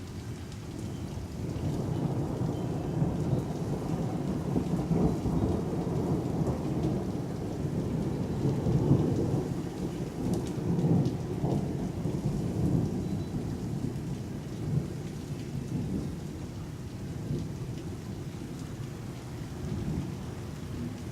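A long roll of thunder that swells over the first couple of seconds, is loudest around the middle, then slowly dies away, over steady falling rain.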